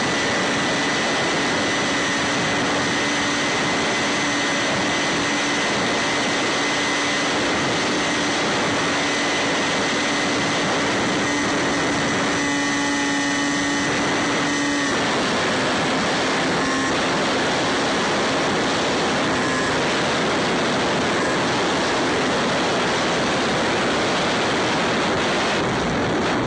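Electric motor and pusher propeller of a Bixler 3 model plane whining at a steady pitch in flight, heard from the onboard camera with wind rushing over its microphone. About fifteen seconds in, the whine drops a little in pitch and fades, leaving mostly wind noise.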